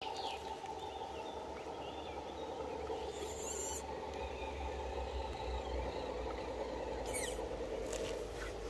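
Steady whirring of a Traxxas TRX-4 RC crawler's electric motor and gearbox as it creeps over roots, with birds chirping over it and two brief hissy crackles.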